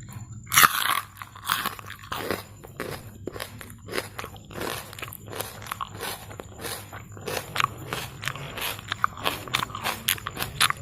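A raw peeled shallot being bitten and chewed: a sharp crisp bite about half a second in, then a long run of irregular crunches.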